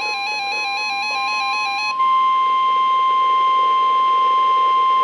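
NOAA Weather Radio's 1050 Hz warning alarm tone, a steady high-pitched tone that signals a warning is about to be read. For the first two seconds a second, warbling electronic alert tone sounds over it. Then the warble stops and the steady tone carries on alone, louder.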